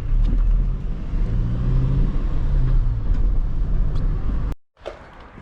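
Motor vehicle engine running, its pitch rising for a moment as it speeds up about two seconds in; the sound cuts off suddenly near the end.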